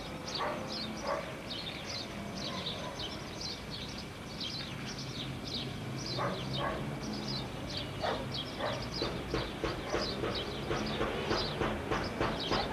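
A dog barking repeatedly, the barks coming faster from about nine seconds in, over many short high chirps.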